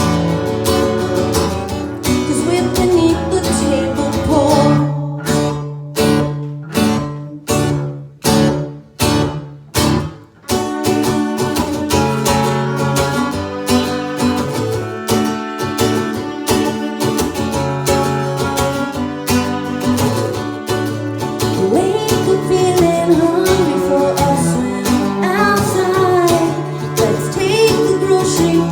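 Live duo performance of a song on guitar with singing. From about five seconds in, the playing breaks into a run of short, stopped chord hits about two a second, then the full strumming comes back at about ten seconds.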